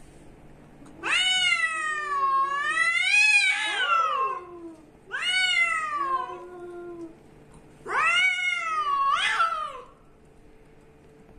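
Cats yowling at each other in an aggressive face-off: three long, wavering yowls that rise and fall in pitch, starting about a second in and ending near the end.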